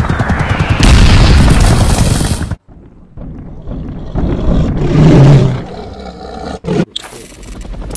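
Loud rapid gunfire and rumbling battle noise, which cuts off abruptly about two and a half seconds in. A dinosaur roar sound effect then rises and peaks about five seconds in.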